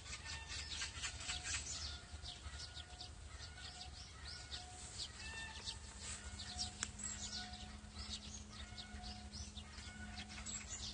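Birds chirping and calling, many short high chirps with a lower short note repeated about once a second, over a steady low rumble.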